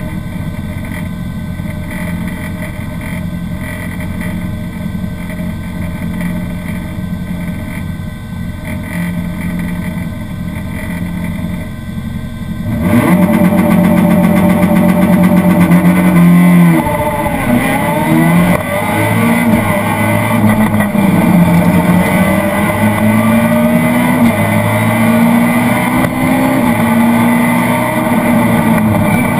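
Citroën Saxo VTS rally car heard from inside the cabin: the four-cylinder engine runs steadily at the stage start for about 13 seconds, then the car launches at full throttle. The engine revs up and drops back at each gear change, about four seconds after the launch and again several times as it accelerates down the stage.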